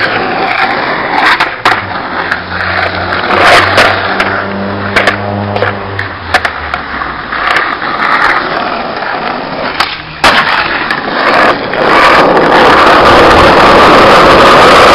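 Skateboard wheels rolling on rough asphalt, with repeated sharp clacks of the board hitting the ground. From about twelve seconds in, the rolling noise turns loud and steady.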